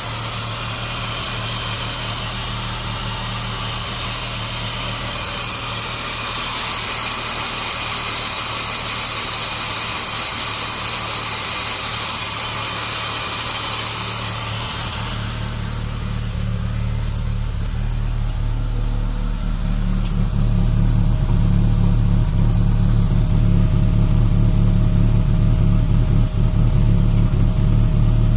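BMW 530i straight-six engine running at idle after a cold start, with the strange knocking and rumbling that the owner is asking about. About halfway the high hiss fades and a deeper rumble grows louder.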